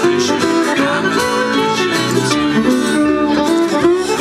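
Live band of fiddle and guitars playing a tune.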